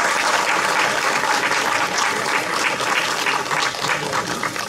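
An outdoor audience applauding after a speech, dense steady clapping that begins to fade near the end.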